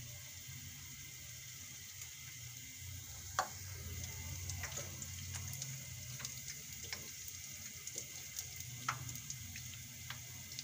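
Besan (gram-flour) fritters frying in hot oil in a shallow pan: a steady sizzle full of small crackles. A few sharper clicks come through, about three and a half seconds in and near the end.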